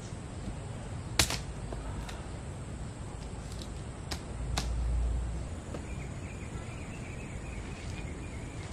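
A machete chopping at a bamboo pole: a few sharp strikes, the loudest about a second in, then others around two and four seconds in. A short low rumble follows about halfway through.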